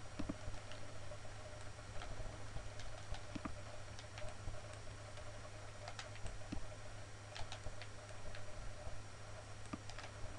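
Scattered faint computer mouse clicks over a steady low hum.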